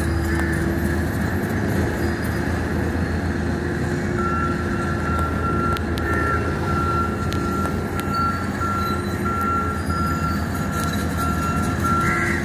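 Diesel engines of a Sakai single-drum soil compactor and an excavator running steadily, a constant low drone. From about four seconds in, a thin high tone sounds on and off.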